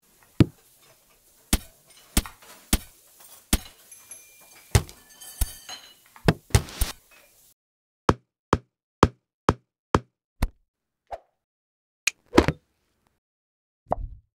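A series of sharp knock and click sound effects. Irregular knocks come first over a faint hiss. Then a steady run of light clicks about two a second, like a minifigure's footsteps, ends in two louder thuds near the end.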